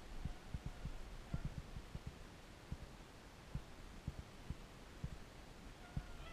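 Irregular low thumps of a hunter's footsteps through dry grass and brush, with handling knocks on the body-worn camera. Near the end a distant hound starts a drawn-out bay.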